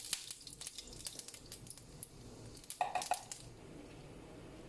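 Mustard seeds popping and spluttering in hot sunflower oil in a pan: scattered sharp pops, thickest in the first second and a half and again in a short cluster about three seconds in, then dying away to a faint sizzle.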